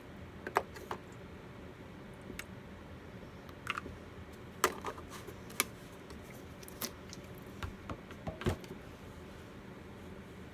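Irregular light clicks and taps of small tools and containers being handled and set down on a work table, with a duller knock near the end.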